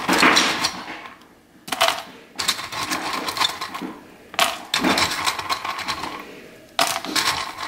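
Almonds clattering as a hand scoops them out of a metal can and drops them into a plastic zip-top bag, in several short bursts of rattling a second or two apart.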